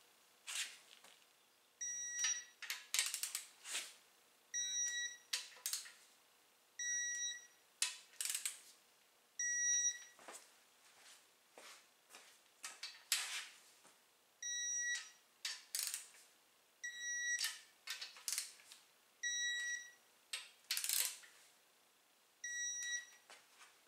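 Electronic torque wrench beeping eight times, a short high beep every two to three seconds, each beep marking a bolt reaching its set torque of 23 foot-pounds. The wrench's ratchet clicks between the beeps.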